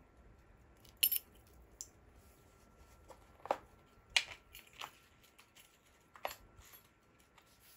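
Light clicks and taps of a wristwatch and its metal bracelet being handled, about six scattered small knocks, the sharpest about a second in and about four seconds in.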